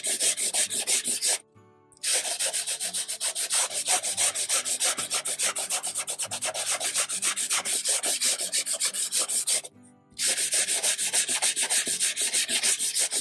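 An old nail file rubbing over inked, embossed cardstock in quick back-and-forth sanding strokes, lightly taking the ink off the raised pattern so it shows through. The strokes pause briefly twice, about a second and a half in and again near ten seconds.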